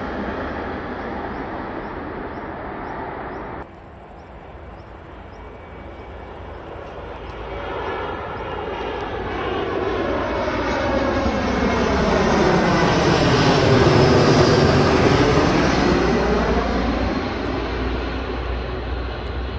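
Jet airliner passing low overhead: its engine noise swells over several seconds to a peak about fourteen seconds in, with a sweeping, phasing whoosh as it goes over, then begins to fade. Before that, the fading noise of a previous aircraft cuts off abruptly about four seconds in.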